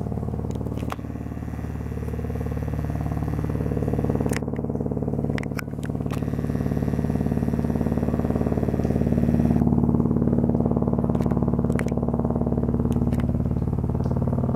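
Military helicopters flying overhead: a steady, even rotor-and-engine drone that grows louder toward the middle and stays loud, its pitch slowly sliding as they circle.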